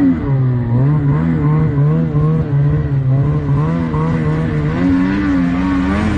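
Snowmobile engine running under throttle while riding through deep powder, its pitch wavering gently up and down with the throttle.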